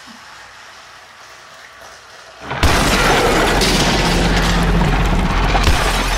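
Faint running of a toy train, then about two and a half seconds in a sudden, very loud explosion-like crash sound that stays loud and steady to the end, as a toy-train crash is staged.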